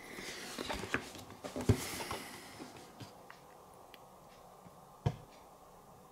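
Headphone packaging being handled: rustling with a few knocks over the first two and a half seconds, then a single thump about five seconds in.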